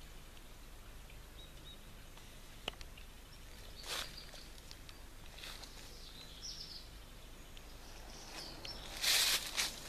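Outdoor ambience with a low steady hum, a few faint bird chirps and brief rustling noises, the loudest rustle about nine seconds in.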